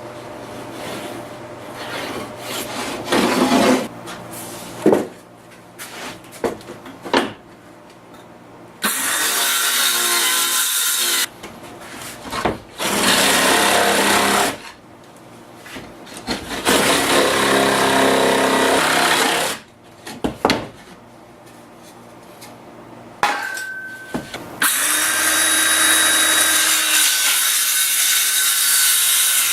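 Power saw cutting plywood in four runs of a few seconds each, the last one running on at the end, with knocks and clatter of the wood being handled in the first several seconds.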